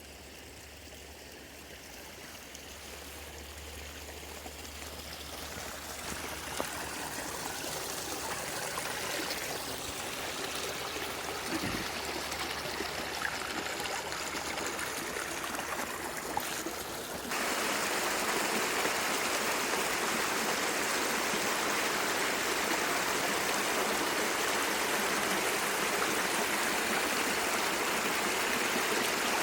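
Lamoille River flowing: a steady rush of moving water that grows gradually louder, then jumps up sharply a little past halfway and holds steady.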